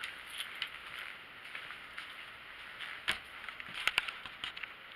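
Handling noise as a person gets up from a wooden chair and moves about close to the microphone: rustling over a steady hiss, a knock about three seconds in, then a quick cluster of sharp clicks around four seconds in.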